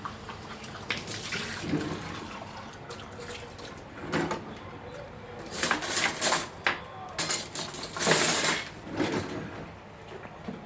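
Kitchen tap running as a measuring cup is rinsed out in the sink, the water splashing in several surges, the biggest about eight seconds in, with a few light knocks of the cup against the sink.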